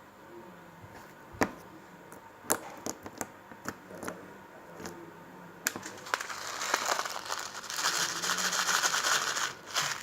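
Slime being worked by hand: scattered sharp pops and clicks, then from about six seconds in a dense crackling that lasts a little under four seconds.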